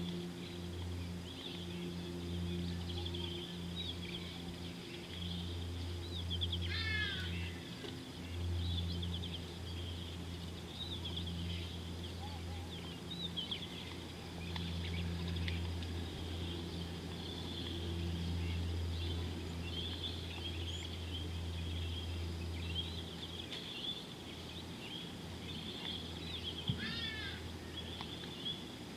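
Wild birds chirping and trilling throughout, with a longer falling whistled call about seven seconds in and again near the end, over a steady low hum.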